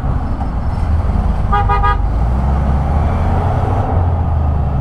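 A vehicle horn gives two quick toots about one and a half seconds in, over the steady running of a motorcycle engine with road and wind noise.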